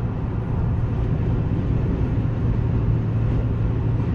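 Steady road and engine noise of a vehicle cruising at highway speed, heard from inside the cab, with a constant low hum.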